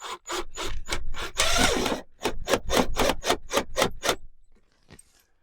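A cordless drill driving a screw into a thin, dry mahogany plank in short trigger pulses, about four or five a second with a longer run in the middle, then stopping. It is being eased in gently so as not to crack the dry wood.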